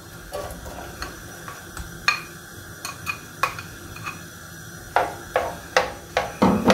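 Sliced onions scraped from a glass bowl into a frying pan of warm oil with a plastic slotted spoon: sharp taps and knocks of the spoon against bowl and pan, coming thicker near the end, over a faint sizzle as the onions start to fry.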